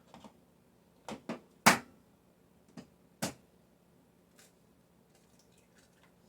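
Eggs being tapped and cracked against the rim of a bowl: five short sharp knocks in two clusters, the loudest a little under two seconds in.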